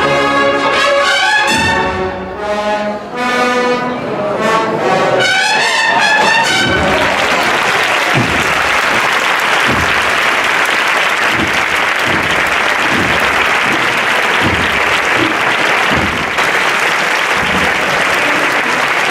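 A cornet-and-drum band (banda de cornetas y tambores) playing the last phrases of a march, rising at the close, which ends about six and a half seconds in. A crowd then applauds, with low thumps about once a second beneath it.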